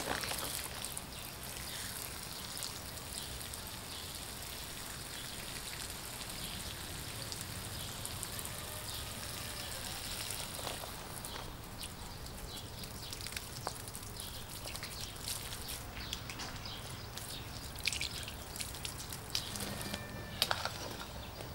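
Water spraying from the hose nozzle of a Nemo Helio pressure shower, a steady patter onto grass and gravel. A few light clicks near the end.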